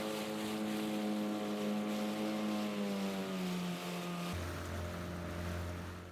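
Boat engine running steadily, its note shifting about four seconds in.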